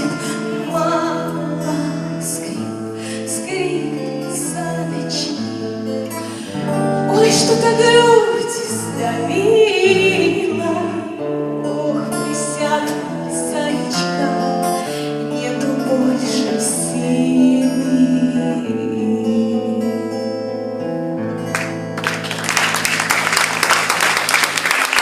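Instrumental outro of the song: a backing track of held chords over a stepping bass line, with a wavering voice-like line in the middle. Near the end a dense noisy wash comes in over the music.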